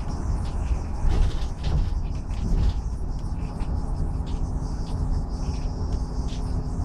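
Inside a city bus: steady low engine and road noise with frequent light rattles and squeaks, and a faint steady engine tone in the second half.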